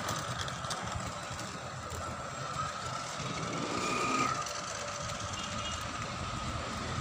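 A toy remote-control car driving over concrete, its small electric motor whining steadily.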